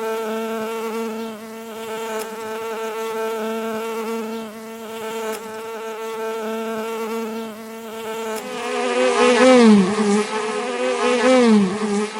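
A bee buzzing: first a steady, even hum. About two-thirds of the way through it grows louder, and its pitch swoops down and back up twice.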